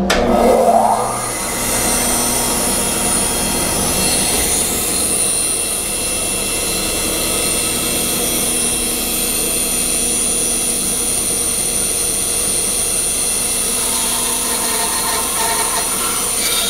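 Woodworking bandsaw switched on, spinning up with a brief rising whine, then running steadily with a high whine as its blade cuts a curved profile through a thick hardwood apron board.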